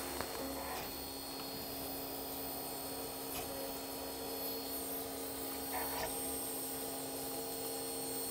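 FDM 3D printer running a print: a steady hum from its fans and motors, with a couple of faint brief changes as the print head moves.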